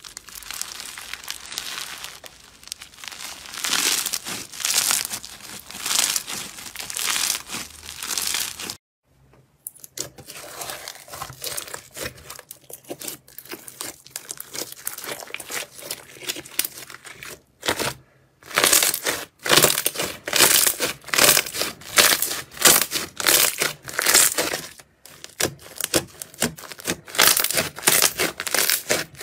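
Hands squeezing and kneading crunchy bead-filled slime, a dense crinkling crackle. After a short break about nine seconds in, slime with bits mixed into it is squeezed and pressed, and in the last third it gives a quick run of sharp crackles and pops.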